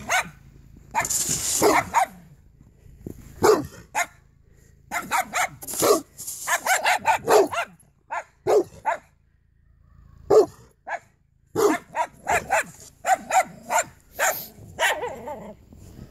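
Dogs barking in quick runs of short barks while play-fighting: a Dogue de Bordeaux and a small white dog. There is a brief rushing hiss about a second in.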